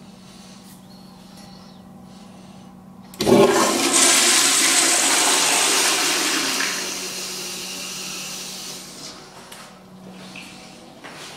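Commercial toilet with an exposed chrome flushometer valve flushing: a sudden loud rush of water about three seconds in, strongest for about three seconds, then dying away over the next few seconds.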